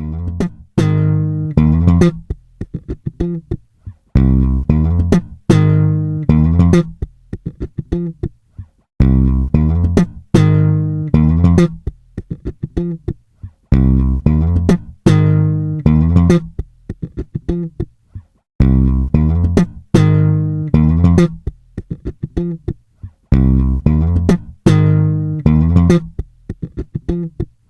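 Background music: a plucked bass and guitar riff played in short phrases that stop abruptly between them.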